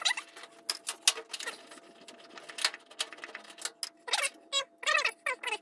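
Light metallic clicks and scrapes from a nut driver taking 5/16 nuts off the top of a washer's sheet-metal front panel. Short squeaks come several times in the last couple of seconds.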